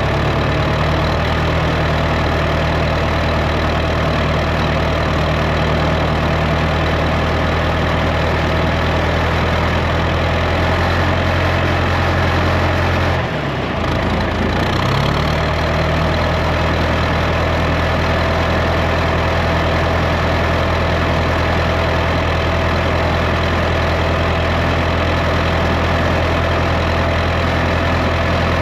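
Farm machinery engine running steadily, with a brief dip in its note about halfway through before it settles back to the same even running.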